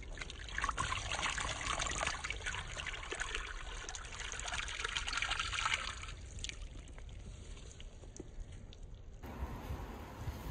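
Water trickling and pouring over a landed mirror carp lying on a wet mesh unhooking mat, tailing off about six seconds in. Near the end there is a brief splash as the fish in its sling is lowered back into the lake.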